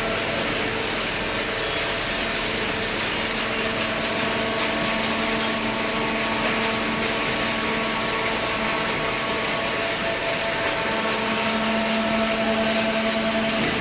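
Industrial cardboard baler running: a steady mechanical noise with a steady machine hum that fades in the middle and grows stronger again near the end.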